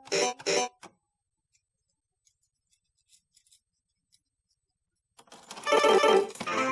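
Tarot Master R pachislot machine: two short electronic stop sounds in quick succession in the first second as the reels are stopped, then a few seconds of quiet. About five seconds in comes a loud dense burst lasting about a second and a half as the next game is started, and a steady electronic reel-spin tone sets in right at the end.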